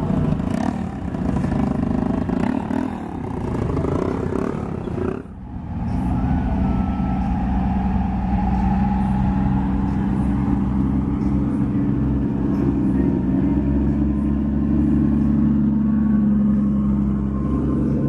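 Car engines running close by at low revs. After a brief break about five seconds in, one engine holds a steady, deep note, rising a little near the end.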